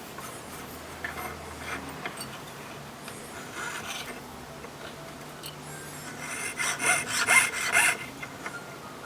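Jeweler's piercing saw cutting 1.5 mm 18K gold sheet: a fine, rasping scratch of quick strokes, growing louder about two thirds of the way in.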